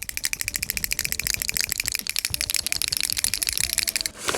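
Cold-started car engine idling with a fast, even ticking knock, about a dozen or more light ticks a second. The knock is typical of piston slap on a cold engine, though it is also taken for hydraulic lifter tick. The ticking stops abruptly just before the end.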